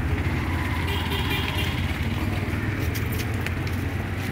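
Auto-rickshaw (three-wheeler) engine running with a steady low rumble, amid street traffic.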